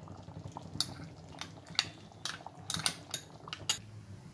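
Metal ladle and spoon clinking against an aluminium kadai of thick gravy: about a dozen light, irregular metal taps.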